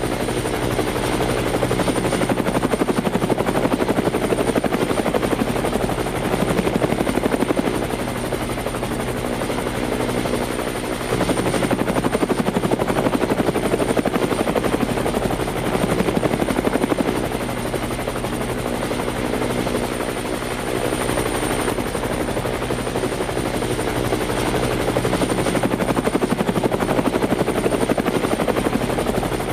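DJI Phantom Vision+ quadcopter's motors and propellers buzzing steadily and loudly, picked up by the drone's own camera. The pitch and loudness shift in stretches as it manoeuvres, stepping up about a third of the way in.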